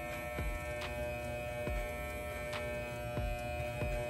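Electric hair clipper with an adjustable blade lever running with a steady buzz while cutting along the sideburn and beard line on the cheek, blade opened all the way. A few faint ticks come through over the buzz.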